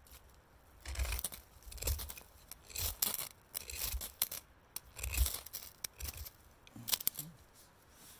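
Steel knife scraping in short, sharp strokes, about one a second, at a tinder bundle of big leaf maple shavings.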